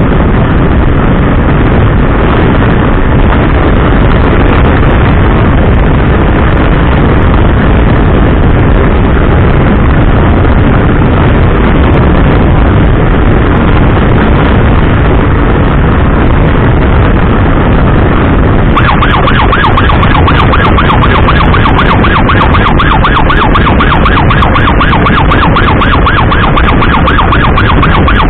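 Heavy wind rush and motorcycle running noise while riding at speed. About two-thirds of the way through, a rapidly repeating electronic emergency siren starts up over it and keeps going.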